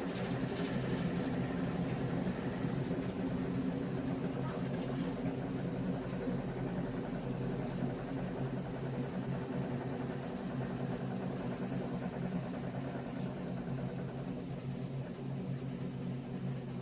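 Electrolux LTE09 top-loading washing machine on its spin cycle, its drum turning at full speed with a steady motor hum.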